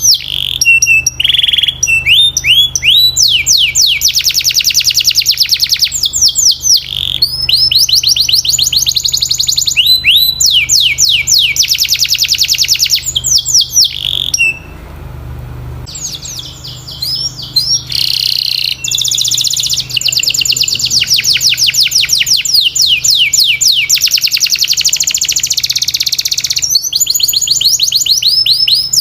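Domestic canary singing: long runs of fast, rapidly repeated high notes, one trill after another, with a short break about halfway through.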